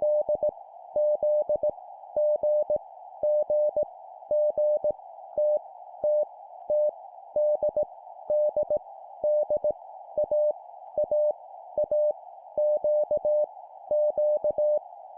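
Morse code (CW) practice: a single steady beep keyed on and off in dots and dashes at 17 words per minute, sending random letters, each repeated three times. A soft, narrow band of hiss runs under the keying, and each dot and dash starts and stops with a faint click.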